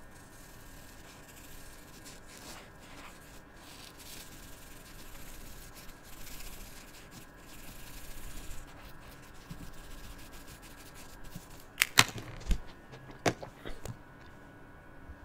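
Felt-tip marker rubbing and scratching on paper as an area is coloured in with back-and-forth strokes, then a few sharp clicks and knocks near the end.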